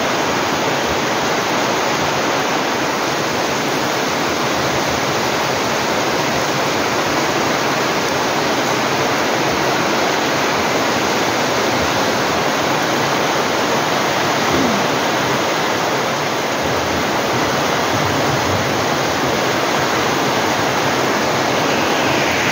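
Heavy typhoon rain falling in a steady, dense hiss on trees, plants and the roof, with water running off the eaves.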